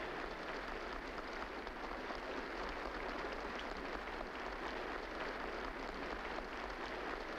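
Audience applauding: a steady, dense patter of many hands clapping, with a low steady hum beneath.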